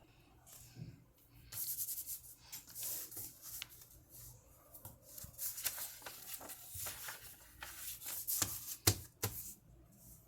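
A sheet of paper being handled, folded and creased by hand, in irregular rustles and rubs, with one sharp snap or tap about nine seconds in.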